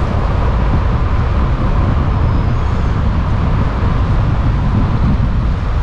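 Steady low rumble of road and traffic noise from a moving car.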